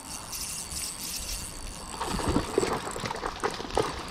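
Spinning fishing reel whirring as line is wound in. From about two seconds in, a hooked trout splashes and thrashes at the surface in a run of irregular splashes and knocks.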